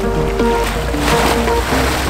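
Background music: a melody of shifting notes over a steady deep bass.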